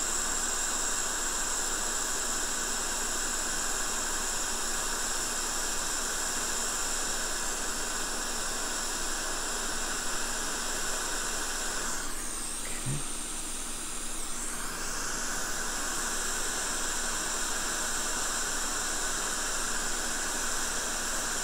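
Steady hiss of blowing air from a blower on the electronics workbench, with a whistling band high up. It dips briefly a little past halfway.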